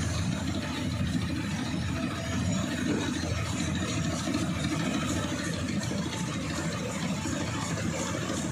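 Diesel engine of a harvest tractor or combine running steadily at constant speed, with no revving or changes.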